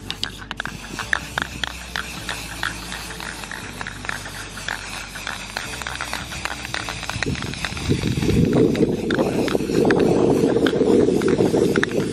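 Irregular clicks and taps, then from about eight seconds in a loud low rumble of wind buffeting the microphone.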